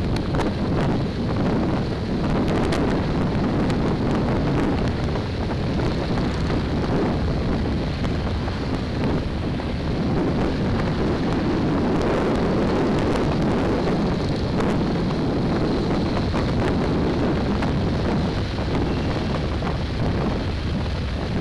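Wind rushing over the microphone of a camera mounted on a moving motorcycle, with the bike's engine running steadily underneath.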